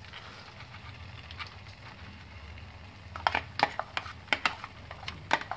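Sprouted fenugreek seeds tipped into a kadai of frying tomato masala, with a faint sizzle. From about three seconds in, a steel spoon scrapes the seeds out of the bowl and taps against the bowl and pan in a string of sharp clicks.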